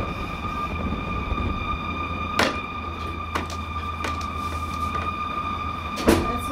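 A steady, loud, high droning tone with several fainter higher tones stacked above it, over a low rumble, broken by two sharp clicks, one near the middle and one near the end. It is the unexplained sound that the recorder calls a mad, eerie wailing that seems to come from the sky.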